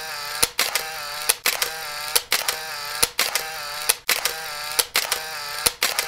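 Camera shutter sound effect repeating a little faster than once a second: a sharp click followed by a short whirring wind, as of a film camera's motor advance.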